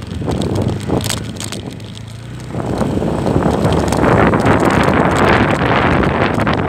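Motorcycle riding with wind rushing over the microphone and the engine humming underneath; the rush gets much louder about two and a half seconds in.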